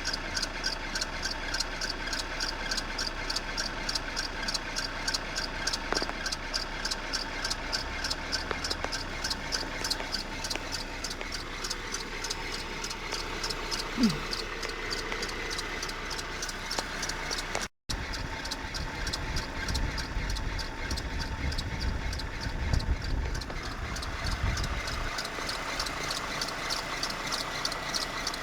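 Renault F4R 2.0-litre 16-valve four-cylinder petrol engine running steadily, with a fast, even ticking throughout. About two-thirds in the sound drops out for an instant, and a deeper, uneven rumble joins for several seconds after.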